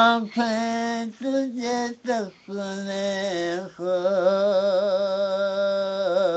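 A single voice singing Urdu devotional verse unaccompanied, in short phrases broken by brief pauses, then one long held note with a wavering vibrato.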